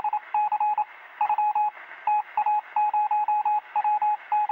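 Morse code: a single steady high tone keyed on and off in short and long beeps in irregular groups, over a background of radio hiss.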